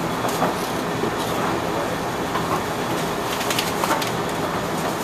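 A steady background hum and hiss, with a few faint scrapes and light taps as a chef's knife slices along a raw trout fillet on a towel-covered board.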